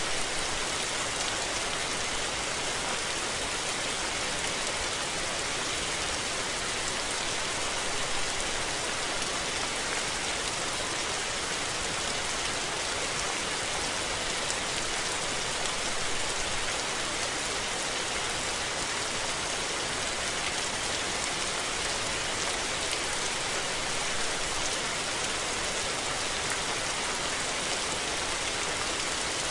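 Steady rain falling and pattering on surfaces, an even hiss with no let-up or distinct drops standing out.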